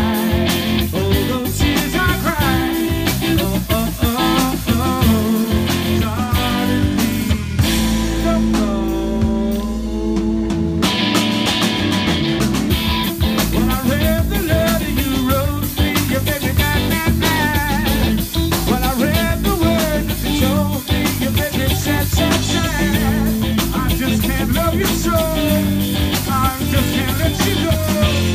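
Live rock band playing: electric guitar, bass guitar and drum kit. About eight seconds in, the drums drop out for a few seconds under a held, bending guitar line, then the full band comes back in.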